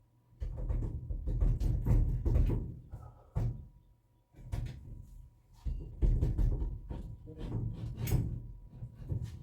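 Irregular knocks, clunks and scraping as a new shower head is screwed onto and tightened on the shower arm, with a few sharper clicks.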